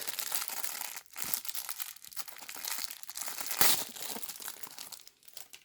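Thin plastic wrapper around a mochi squishy toy crinkling and tearing as it is handled and opened, with one louder crackle a little past the middle.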